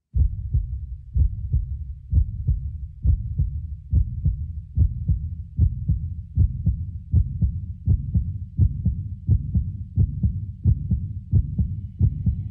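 Music opening on a steady, deep bass-drum pulse, about two beats a second.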